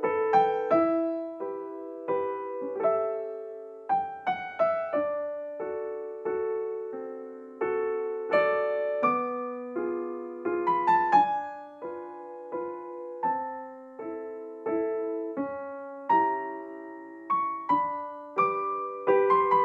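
Background piano music: a slow, gentle melody in struck notes and chords that ring and fade.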